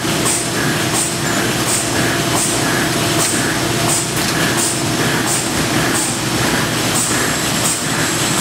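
Print-finishing machinery running with a steady hum and a regular cycling beat, about three strokes every two seconds.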